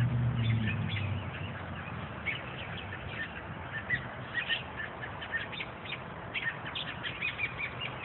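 Many short, high bird chirps repeated throughout, the alarm calls of parent birds upset over their fledgling on the ground. A low hum fades out in the first second.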